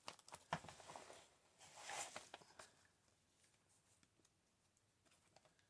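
Faint paper handling: soft rustles and light taps as paper cutouts are picked up and laid on a journal page, with a sharp click about half a second in and a rustle around two seconds, then near silence.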